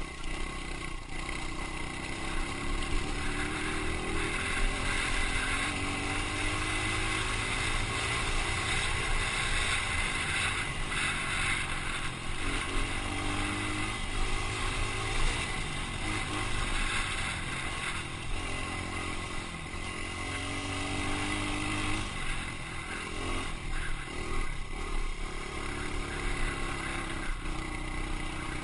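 Dirt bike engine running under way, its pitch rising and falling again and again with the throttle and gear changes, picked up by a helmet-mounted camera.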